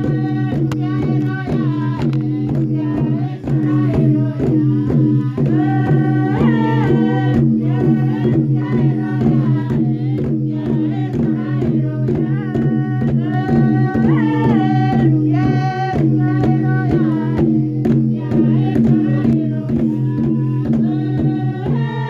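Singing over a steady beat of tifa, the Papuan hand drum, with a sustained low drone underneath.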